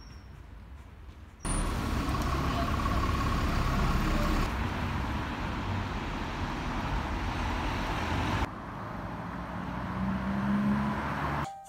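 Road traffic on a street: cars and buses passing, a steady rush of tyres and engines. It starts and drops abruptly as short clips cut in, louder from about a second and a half in, quieter again after about eight seconds, then swelling with a low engine hum near the end.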